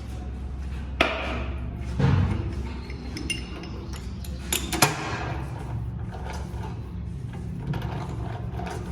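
Metal parts and tools clinking and knocking on a workbench, a few separate strikes with the loudest about one and two seconds in and a quick pair near five seconds, over a steady low hum.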